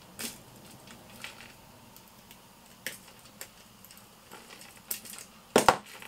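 Small metallic clicks of a steel split ring being opened and worked onto the top of a fishing flasher with split ring pliers: a few sharp, widely spaced clicks, then a louder clatter of handling near the end.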